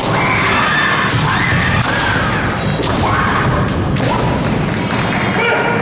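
Kendo bout: drawn-out, high-pitched kiai shouts from female fencers, again and again, with sharp clacks of bamboo shinai and thuds of stamping feet.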